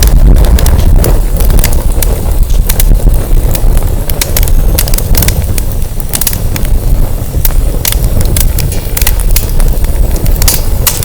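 Burning firewood crackling, with many irregular sharp pops and snaps, under a heavy, constantly shifting rumble of strong wind buffeting the microphone.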